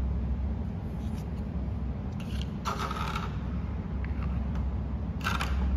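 Plastic toy food being handled: two short scraping, rubbing rustles, one about halfway and one near the end, over a steady low hum.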